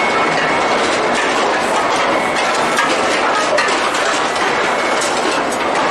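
Chain conveyors of an induction forging line running: a steady metallic rattle and clatter of chain links over sprockets, with many small clicks.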